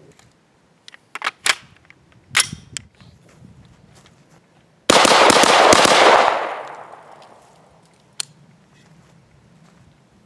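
Customised Stag Arms AR-style 3-gun rifle firing a fast string of shots, double taps on three close targets in turn, packed into about a second and a half, with the report echoing away afterwards. A few sharp clicks come before the string and one after it.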